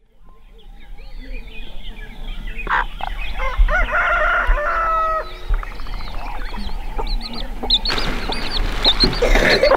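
Chickens clucking in a farmyard, fading in over the first few seconds, with a rooster crowing about four seconds in. Near the end a plastic bag rustles.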